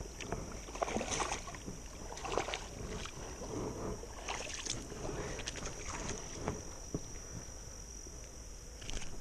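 Shallow creek water splashing and sloshing in irregular bursts as a hooked smallmouth bass thrashes at the surface and is lifted out by hand.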